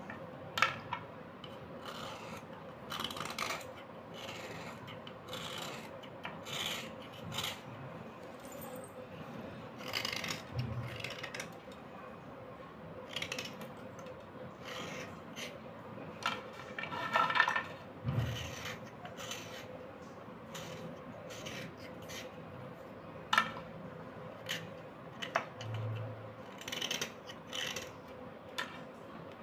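Slate pencils being scraped with a small metal blade: irregular short rasping strokes as the blade shaves the soft slate, with an occasional sharp click.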